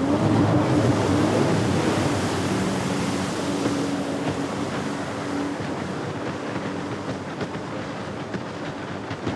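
Jet ski engine running at speed with the rush and hiss of water spray. It is loudest about a second in, then slowly fades with a steady engine tone.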